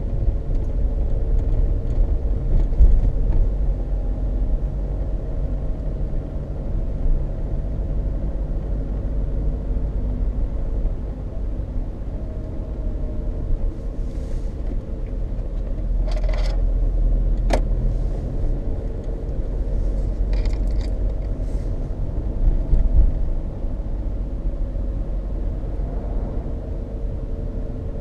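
Tyre road noise heard inside a Peugeot 306 2.0 HDi's cabin while driving: a steady low rumble with a droning hum from Dunlop Sport BluResponse tyres that are really loud. The owner wonders whether it is down to tread wear, since bearings, balancing and alignment have been checked. A few short rattles come about halfway through, from the camera mount.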